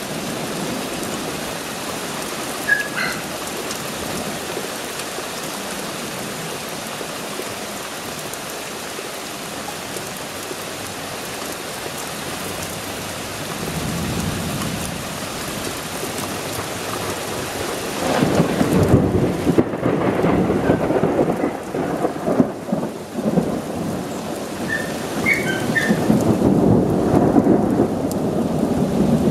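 Thunderstorm: steady rain falls throughout, and rolling thunder rumbles in about halfway through. The thunder grows loudest in the last third, around a lightning flash near the end.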